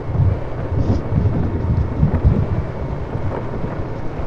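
Off-road vehicle engine running as it drives along a rough trail: a steady low rumble with jolts, and wind on the microphone.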